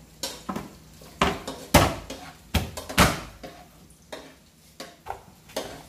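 Meat cleaver chopping blue swimming crabs (alimasag) in half on a plastic cutting board: a run of sharp, irregular chops and knocks, the loudest about two and three seconds in.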